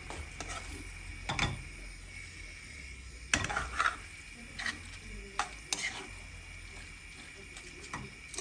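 Metal spoon stirring diced ox heart and kidney in a non-stick frying pan, scraping and clinking against the pan at irregular intervals over a low sizzle.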